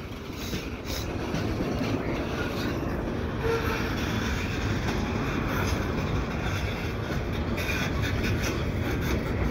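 Cut of freight cars rolling on the rails as it is shoved back, a steady rumble with the wheels clicking over the track, growing louder over the first second and then holding.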